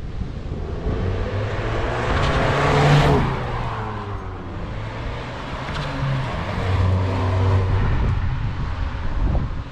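Audi A3 8V with a back box (rear silencer) delete exhaust driving past. The engine note swells as the car approaches and drops in pitch as it passes about three seconds in, then a steady exhaust drone carries on as it pulls away.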